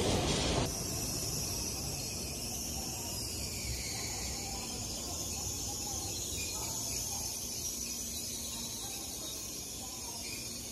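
A loud rush of a passing Shinkansen train cuts off suddenly about half a second in. It leaves the steady background noise of a station platform: a low rumble with a faint high-pitched hiss.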